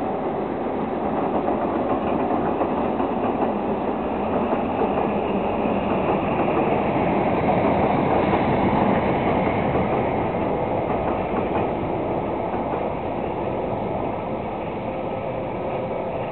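Steam-hauled passenger train passing over a railway bridge, its carriage wheels rumbling and clattering on the rails. The sound is loudest about halfway through, then slowly fades as the train moves away.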